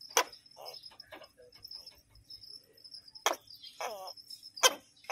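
Tokay gecko, cornered and poked by a finger, giving short croaking calls as a defensive threat. Sharp clicks come near the start, about three seconds in and near the end; croaks come about half a second in and about four seconds in.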